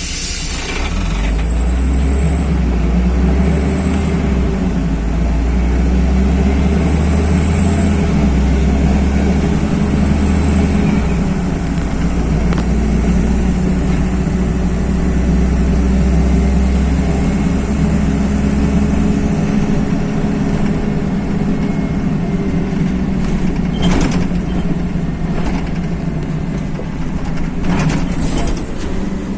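A LiAZ-5292.21 city bus under way, heard from inside the cabin: its diesel engine runs with a deep drone over road and tyre noise. The drone drops away about two-thirds of the way through, and a few sharp knocks or rattles come near the end.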